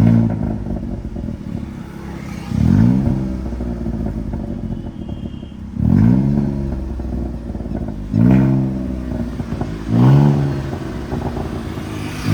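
Volkswagen Polo's 1.0 litre MPI three-cylinder engine blipped through its modified exhaust with the exhaust switched on. The revs rise sharply and drop back to idle about every two seconds, with a steady idle between the blips.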